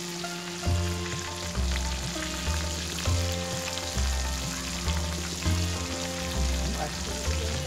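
A whole fish deep-frying in a pan of hot oil, bubbling and sizzling steadily. Background music with held notes and a regular bass beat plays under it.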